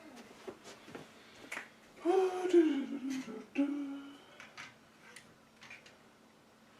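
A man hums briefly in two short parts, gliding slightly down in pitch, with a few sharp clicks scattered around it.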